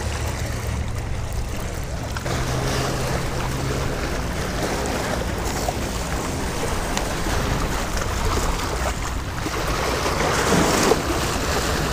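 Small lake waves washing and splashing against rocky shoreline riprap, with wind buffeting the microphone and a low steady rumble underneath. The wash swells to a louder splash near the end.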